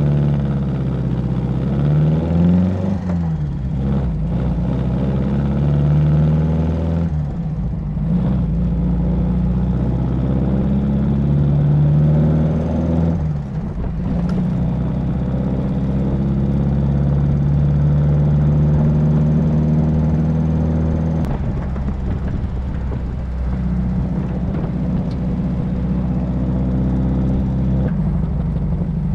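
MG TD's 1.3-litre XPAG four-cylinder engine driving along, heard from the open cockpit. The engine note climbs and drops back several times, then runs steady for the last several seconds.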